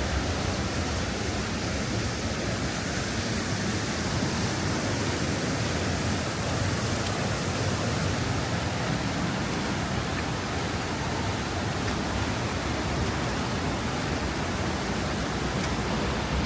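Waterfall swollen by recent rain, its water falling heavily in a steady, even rush.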